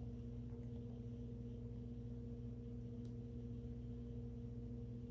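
Steady low hum of a few held tones, with one faint click about three seconds in.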